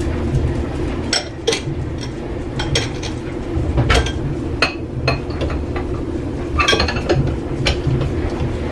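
Glass dishes clinking and knocking together as they are handled and set down, about a dozen sharp clinks spread unevenly through, over a steady low hum.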